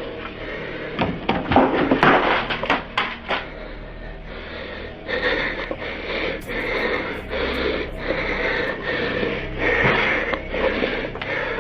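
Heavy, rasping breathing in quick repeated breaths, with a cluster of sharp clicks and knocks about one to three seconds in.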